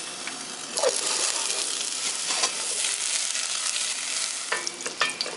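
A block of butter dropped into a hot stainless steel saucepan, sizzling as it melts. The sizzle jumps up about a second in and then runs steadily.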